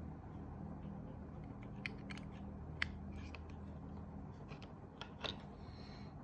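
A few small plastic clicks and taps from plugging a USB cable's plug into an Arduino Uno board and handling its jumper wires. The sharpest click comes a little under 3 seconds in, with a few more around 5 seconds, over a steady low hum.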